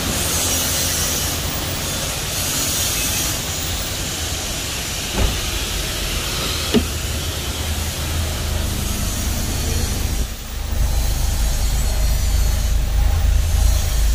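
Honda VTEC engine running with the air conditioning on, a steady low rumble with a hiss over it. Two sharp knocks come about five and seven seconds in. About ten seconds in, the sound dips briefly and then comes back deeper and louder.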